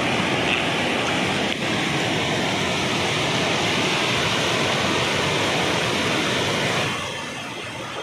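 Forest stream rushing as white water over sloping rock slabs in small cascades: a steady, loud rush of water that turns quieter about seven seconds in.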